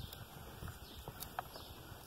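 Faint, scattered clicks and light knocks of a chainsaw's loose chain and bar being handled and seated by gloved hands.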